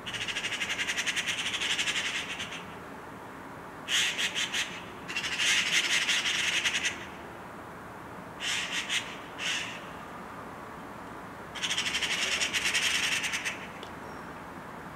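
Eurasian magpies giving their rattling chatter alarm call in repeated bouts, each a second or two of rapid chacking, as they mob a cat.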